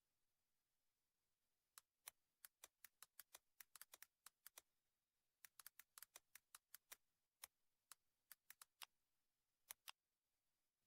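Near silence with about thirty faint, sharp clicks at irregular spacing. They start about two seconds in, pause briefly around the middle and stop shortly before the end.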